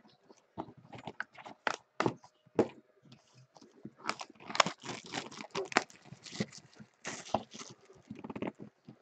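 Plastic shrink-wrap being torn and crinkled off a sealed trading-card box, with cardboard boxes being handled: a run of short, irregular crackles and rustles.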